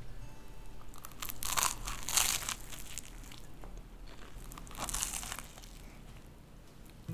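Crisp grill-pressed rye panini crust crackling and crunching as the sandwich is torn apart by hand, in two spells: a longer one about a second and a half in and a shorter one about five seconds in.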